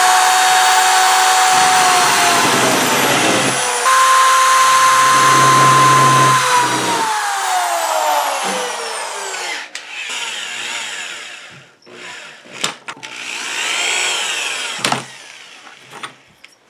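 Handheld DeWalt electric drill running at speed while drilling into the particle-board drawer front. Its pitch steps up about four seconds in, then winds down and stops. This is followed by shorter, quieter drill runs whose speed rises and falls, and a few sharp clicks.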